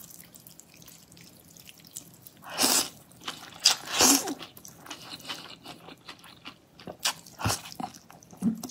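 Cold noodles in chili-oil broth being slurped in several separate loud bursts, the largest about a third of the way in, with short spluttering as the spicy broth catches in her throat and makes her choke.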